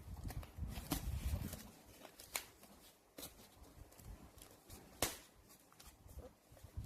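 Scattered sharp clicks and knocks of things being handled, the loudest about five seconds in, over a low rumble that fades out about two seconds in.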